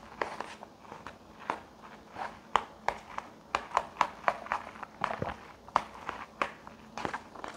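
Metal chopsticks stirring instant noodles in a cup, making irregular sharp clicks and taps, two or three a second.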